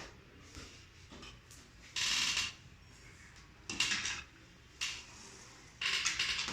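Polarizer film being pried and peeled off an LCD panel with a razor blade: four short scratchy bursts over a few seconds, the loudest about two seconds in.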